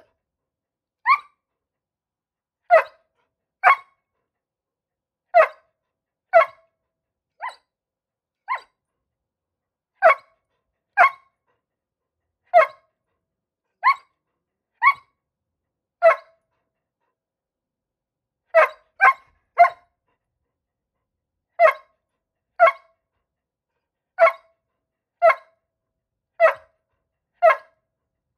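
A dog barking in short single barks, often in pairs about a second apart with brief pauses between, about twenty barks in all, two of them softer a third of the way in. It is demand barking for food: the dog wants more of the owner's taco.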